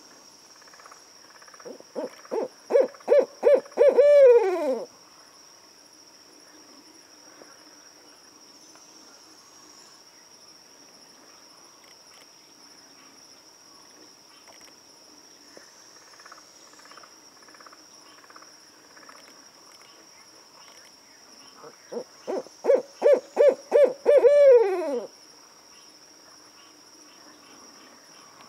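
Adult barred owl calling twice, about twenty seconds apart. Each call is a quick run of about eight hoots that grow louder, ending in a longer note that slides down in pitch.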